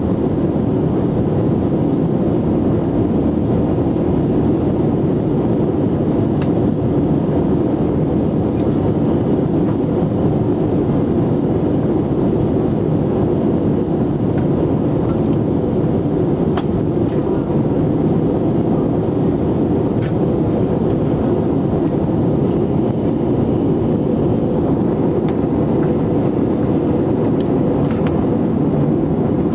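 Steady roar of a jet airliner's engines and airflow heard from inside the passenger cabin, holding an even level, with a few faint clicks.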